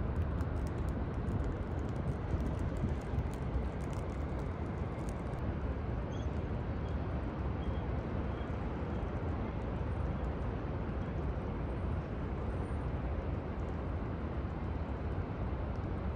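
Steady outdoor city noise in the rain: a low, even rumble of traffic and a hiss of rain, with light scattered ticks in the first few seconds.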